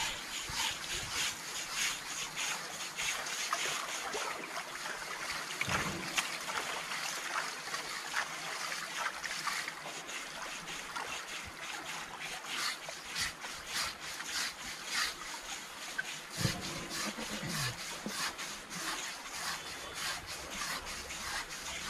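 Water splashing and trickling as men scrub a Kerala tusker's hide by hand in a shallow pool: a continuous run of quick wet rubbing strokes.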